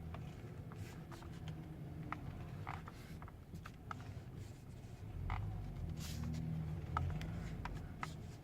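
Steering wheel squeaking and creaking as it is turned: short scattered squeaks and clicks over a low rumble that grows louder about halfway through.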